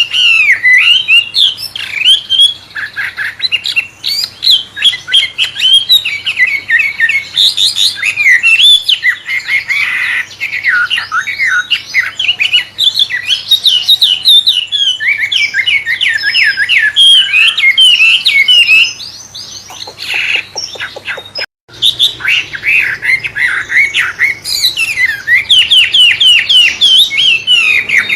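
Wambe bird singing a loud, fast, varied song of rapid chirps and whistled notes in a white-rumped shama (murai) style, with a brief lull and break about three-quarters of the way through.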